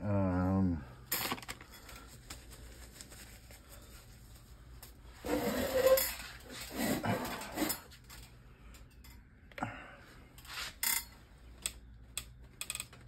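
Hands handling plastic and silicone resin molds and cups on a work mat: scattered clicks and light knocks, with two longer rustling, scraping stretches about five and seven seconds in.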